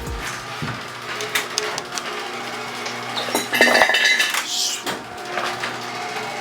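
Metal parts clinking and clanking against each other, a run of sharp knocks with a louder ringing clank about three and a half seconds in.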